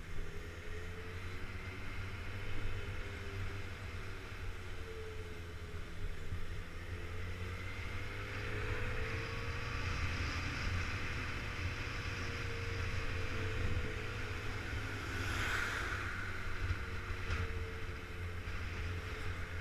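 Motorcycle engine running steadily while riding, with wind and road noise; the engine note rises a little midway and eases back, and a short rush of noise comes near the end.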